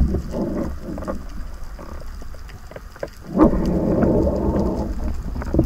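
Underwater noise picked up by an action camera's housing: a steady low rumble of moving water with scattered crackling clicks, growing louder about three and a half seconds in.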